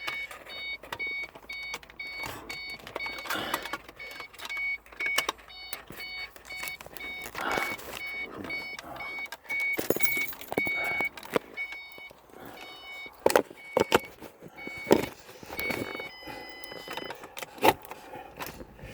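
Car warning chime for a key left in the ignition, a high beep repeating about twice a second, switching to a held tone for about a second near the end. Scattered clicks and knocks come from hands working at the console and gear shifter.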